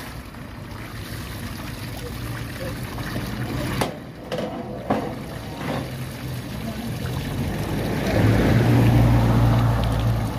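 An engine running steadily with a low, even drone that grows much louder about eight seconds in. A few sharp knocks come near the middle.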